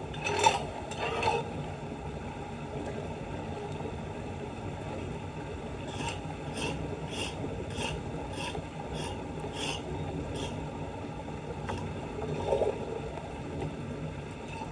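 Debris being scraped at a flooded street drain: two scrapes near the start, then a run of about eight evenly paced scraping strokes, and one louder scrape near the end, over a steady rush of water.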